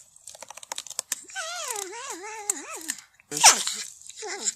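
Porcupine calls: a quick run of clicks, then a wavering, whining call. About three and a half seconds in comes a sharp squeal falling in pitch, followed by short falling whines near the end.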